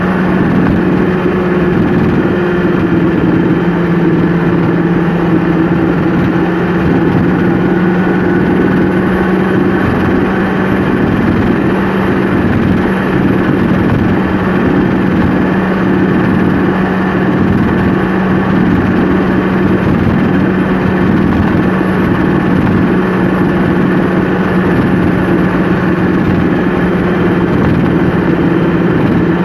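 Engine drone and road noise inside a vehicle cruising at a steady highway speed, with a constant hum that never changes in pitch.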